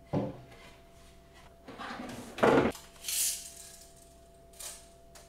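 A handful of short knocks, rattles and a brief scrape from handling the plywood keyboard stand and its hardware, the loudest about two and a half seconds in. A faint steady hum comes in about halfway through.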